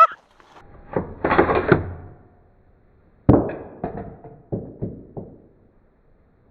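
Mechanical clicks and clunks from handling an AR-style rifle chambered in 7.62x39: a rattle of knocks around one to two seconds in, a sharp clunk a little past three seconds, then four or five lighter clicks.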